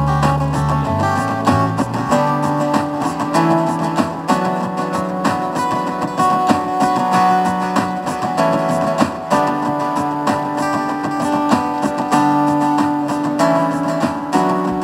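Solo acoustic guitar played fingerstyle: a continuous run of plucked notes over changing bass notes, with sharp attacks throughout.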